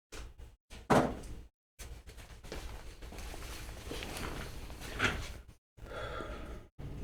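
Knocks and scraping from handling objects on a workbench: a sharp knock about a second in, a few seconds of scraping and rustling, and a second knock near five seconds.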